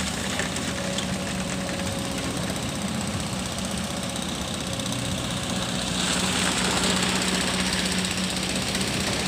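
Kobelco hydraulic excavator's diesel engine running steadily while it digs and swings. It gets louder about six seconds in as the machine works harder.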